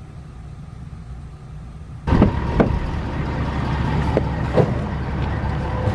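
Low steady rumble of a vehicle running. About two seconds in it gets louder, with several separate knocks or thumps.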